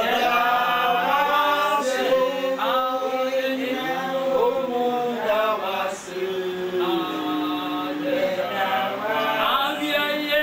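Several voices singing together in a slow chant, with long held notes.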